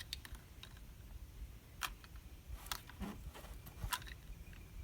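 A few scattered light clicks and taps, four or so, a second or less apart, from hummingbird feeder parts being handled while the feeders are filled.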